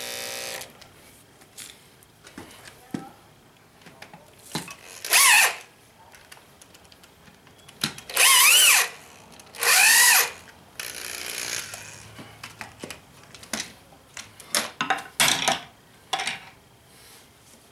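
Corded electric drill driving screws in short trigger bursts, the motor spinning up and winding down each time. Near the end come a few sharp metal clinks as steel hammers are set on the forged steel hooks.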